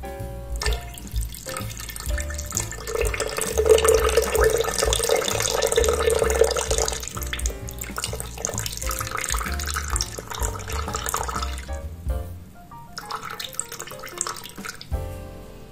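Lime juice pouring from a citrus juicer into a glass blender jar, a trickling, splashing stream that tails off about three-quarters of the way through, over background music.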